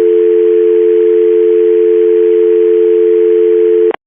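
Telephone dial tone: two steady tones sounding together, cutting off suddenly near the end. It comes on the moment the caller's voice stops, a sign that her call has dropped.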